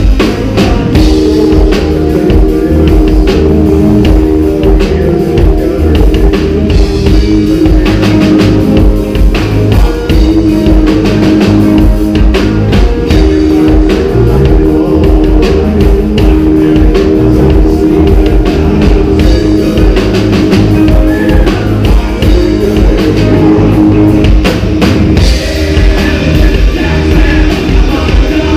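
Live rock band playing loudly: drum kit, electric guitars and bass.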